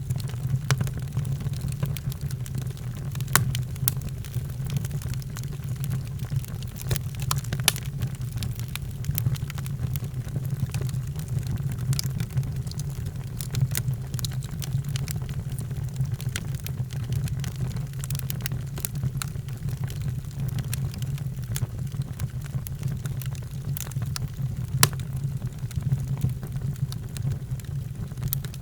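Wood fire crackling in a fireplace: scattered sharp pops and snaps over a steady low rumble of burning.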